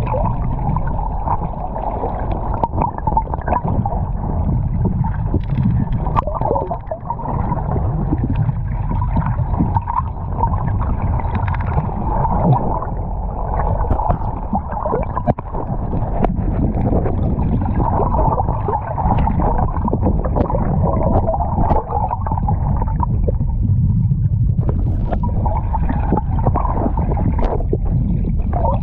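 Muffled underwater sound picked up by a submerged camera: a steady low rumble and gurgling water, with many small scattered knocks.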